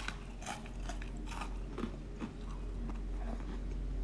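A person biting into and chewing garlic bread dipped in marinara sauce: a quiet run of short, irregular crunches.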